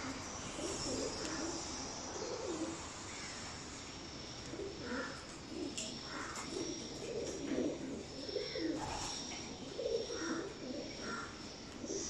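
Homing pigeons cooing, several birds calling over one another in repeated low, rounded coos.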